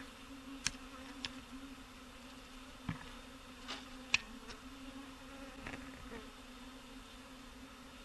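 A swarm of bees buzzing: a steady, fairly faint hum, with several short sharp clicks over it, the loudest about four seconds in.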